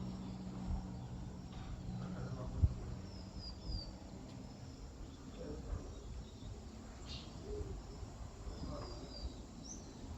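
Faint outdoor ambience with a few small birds chirping, in short high falling runs of about three notes. There is one brief knock about two and a half seconds in.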